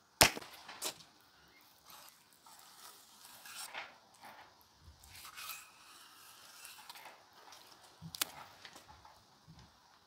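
A sharp knock, then a run of irregular crunching and tearing sounds of food being handled or cut, with another sharp click about eight seconds in.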